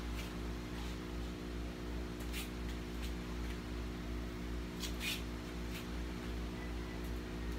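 Steady low hum of a running electric stand fan, with a few soft scuffs and taps from bare feet on an exercise mat during lunges, about half a dozen of them.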